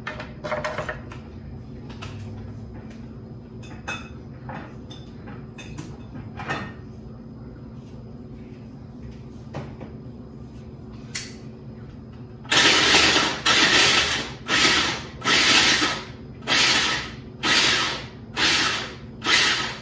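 Electric mini food chopper chopping garlic in short pulses: about ten loud bursts of motor whirring, each about half a second, starting a little past halfway, after a stretch of light clicks and taps.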